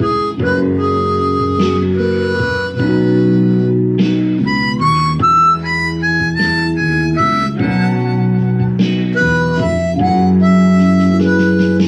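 Harmonica playing a blues solo, with long held notes and a quick run of short high notes about midway, over a blues guitar backing track in B.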